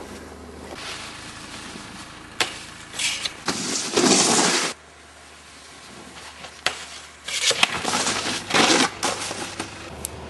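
Bursts of crunching and scraping on snow, each lasting about a second, with a few sharp knocks between them.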